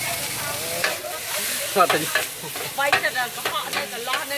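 Rice pin noodles, bean sprouts and greens sizzling on a large flat steel pan over a gas burner. A metal spatula scrapes and clinks against the pan at an irregular pace as the food is stir-fried, under a steady hiss of frying.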